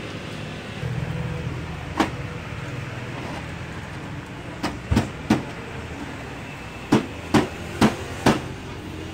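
Sharp plastic knocks and snaps as the back cover of a 21-inch Samsung CRT television is pried and pushed loose by hand. One comes about two seconds in, then a quick run of seven over the second half, above a steady low hum.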